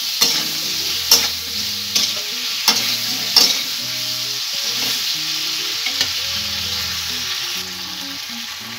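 Diced potatoes with tomato and ground spices sizzling in oil in an aluminium kadai while a spatula stirs them, scraping and knocking against the pan about once a second over the first few seconds and less often after. This is the masala being sautéed down with the potatoes.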